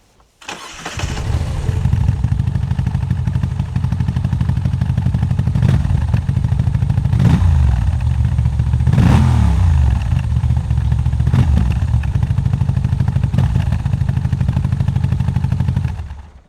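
Moto Guzzi V85TT's air-cooled transverse V-twin fitted with an Akrapovič slip-on exhaust, started up and idling, with about five throttle blips (the biggest about nine seconds in), then switched off near the end.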